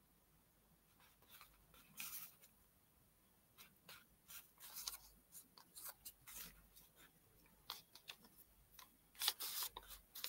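Near silence: room tone with a few faint, scattered soft clicks and rustles, a little busier near the end.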